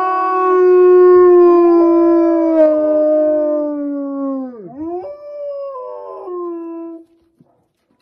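Two wolves howling together in long, overlapping howls that slide slowly down in pitch. One howl dips sharply and climbs again about four and a half seconds in. The howls stop about seven seconds in.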